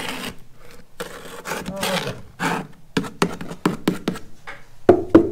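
A plastic mixing cup knocking and scraping against a sump form as thick two-part expanding foam is poured and emptied out of it. It makes a run of short sharp knocks and clicks, with two louder thumps near the end.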